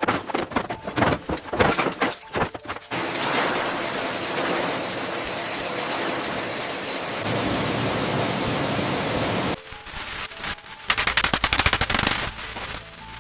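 Renovation work sounds: a rapid run of knocks and taps, then a steady hiss lasting about six seconds that turns brighter partway through, then another fast burst of knocking near the end.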